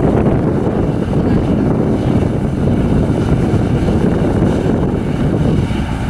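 Claas Lexion 530 combine harvester running steadily while harvesting wheat: a loud, unbroken low rumble of engine and threshing machinery.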